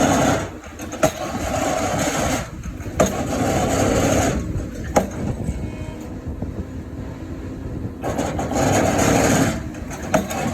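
Excavator's diesel engine working, its sound swelling and easing several times as the load changes. Sharp knocks come about every two seconds in the first half.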